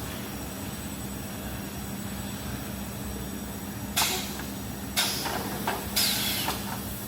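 SPC flooring automatic packing machine running with a steady hum, with three sharp bursts about a second apart in the second half.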